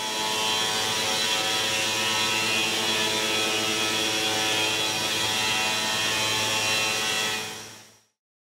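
Park Industries TITAN 3700 CNC stone router running, its spindle giving a steady whine of several tones over a hiss. The sound fades in at the start and fades out at about seven and a half seconds.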